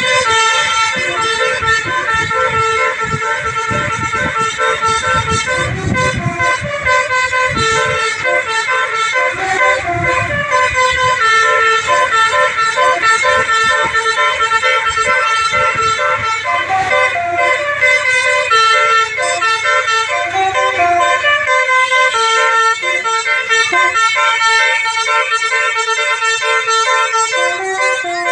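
A tour bus's multi-tone basuri telolet horn playing a tune of held notes, stepping from note to note without a break. A low rumble sits underneath and drops away about 21 seconds in.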